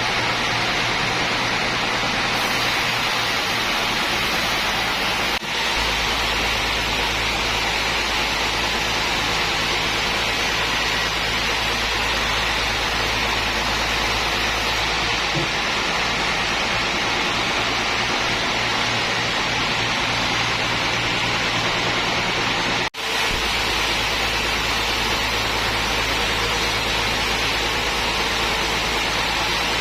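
Sawmill machinery running with a steady, loud mechanical noise and a low hum, broken by two brief dips.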